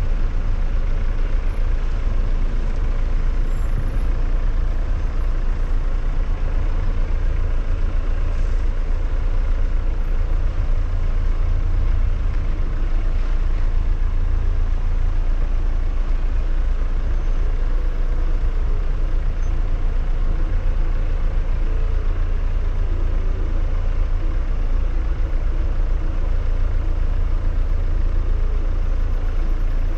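Jeep SUV driving slowly along a rough dirt track: a steady rumble of engine and tyres, with low wind buffeting on the externally mounted camera's microphone.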